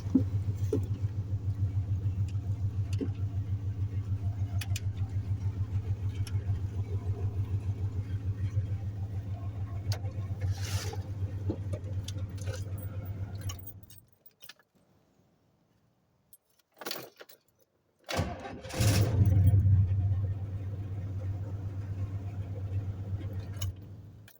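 1995 Chevy's engine idling steadily, then switched off about fourteen seconds in. After a few quiet seconds and a key click it is cranked and catches at once, revving briefly before settling back to idle, starting without trouble.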